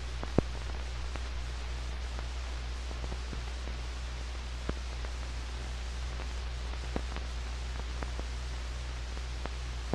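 Blank stretch of an old film's soundtrack: a steady hiss with a low mains hum, broken by a few faint clicks.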